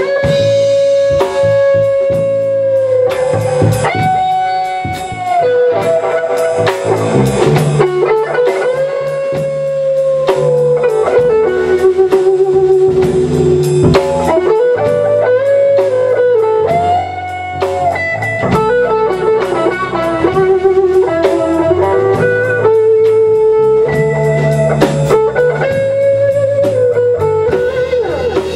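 Electric blues-rock band playing an instrumental break: an electric guitar leads with long held notes that bend up and down and waver, over a drum kit and a low rhythm part.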